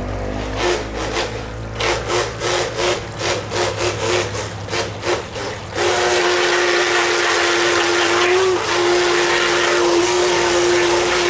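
Small electric motor of a radio-controlled toy boat, throttled in short pulses about three times a second, then held on as a steady whine with a hiss through the second half.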